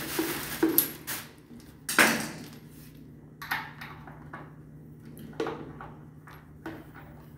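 Clinks, scrapes and knocks of a screwdriver and a braided metal water hose being handled against the fittings and plastic cover of an electric water heater, loudest about two seconds in. A steady low hum runs underneath.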